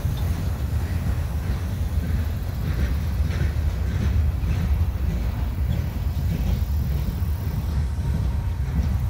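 Empty railroad flatcars rolling past on the rails: a steady low rumble of wheels on track, with faint irregular clicks.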